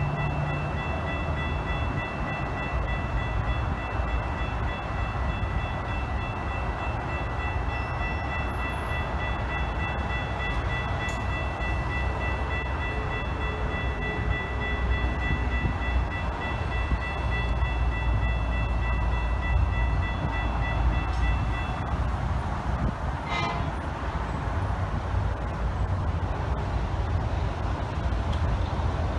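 Railroad grade-crossing bell ringing rapidly, warning of an approaching train, then stopping abruptly about three-quarters of the way through, over a steady low rumble.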